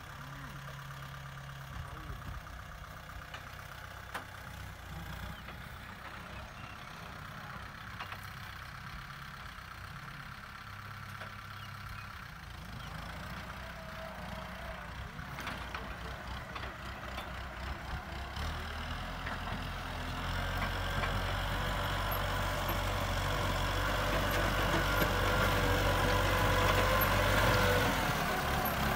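Kubota M6040 tractor's diesel engine running steadily as it pulls a disc plough through the soil, growing louder in the last third.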